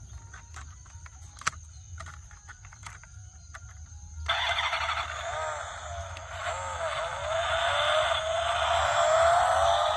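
A few faint clicks, then about four seconds in a toy vehicle's electronic sound effect starts suddenly. It is loud, with a wavering pitch that climbs toward the end.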